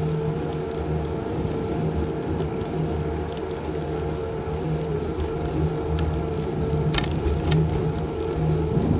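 A small vehicle motor running at a steady pitch during an uphill climb, with low wind and road rumble. There is a single sharp click about seven seconds in.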